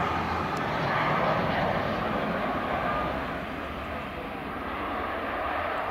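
Turbofan engines of a KLM Cityhopper Embraer jet airliner landing, a continuous jet rush that slowly gets quieter as the aircraft flares over the runway.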